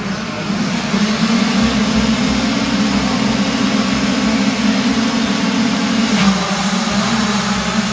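A full gate of 65cc two-stroke motocross bikes revving together on the start line, a dense steady engine drone. It gets louder about a second in and dips briefly near the end.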